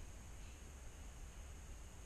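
Quiet background: a faint steady low rumble and hiss, with no distinct event.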